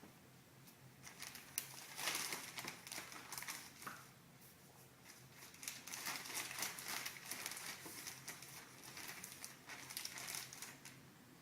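Thin plastic poly bag crinkling as it is handled, in several stretches with a few light clicks.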